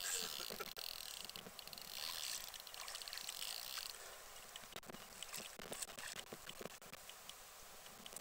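Fishing reel being wound in short spells as a hooked fish is played close to the bank, with small scattered clicks in the second half.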